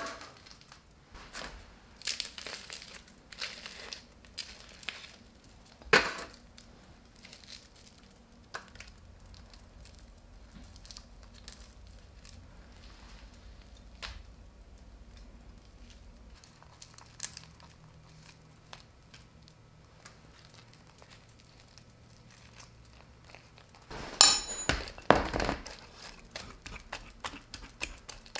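Food-preparation handling noises: crinkling and crackling with scattered sharp taps and clinks, a loud tap about six seconds in and a dense burst of crackling near the end.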